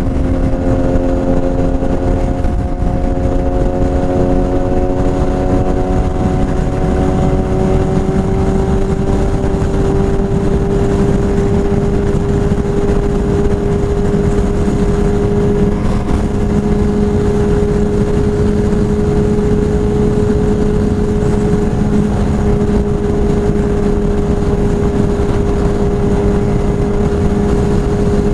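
BMW S1000RR's inline-four running through a full Akrapovič exhaust at a steady, loud drone. Its pitch rises slowly over the first ten seconds or so, then holds level.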